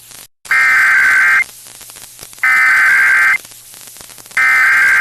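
Three bursts of Emergency Alert System SAME header data tones relayed over FM radio, each a harsh buzzing warble about a second long, about a second apart, marking the start of a severe thunderstorm warning. Faint radio hiss and a low hum fill the gaps.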